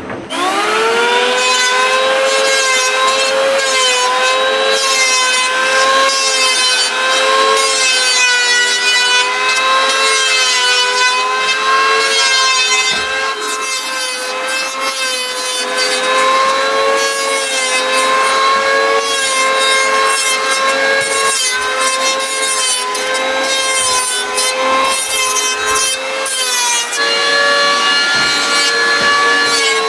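Electric hand planer motor spinning up right at the start, then running steadily while shaving a wooden plank. Its whine dips and recovers under the load of the cut, and shifts slightly in pitch near the end.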